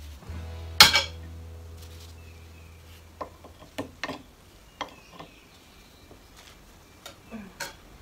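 Background music fading out, with a sharp knock about a second in, then a few scattered light clicks and clinks of hard objects.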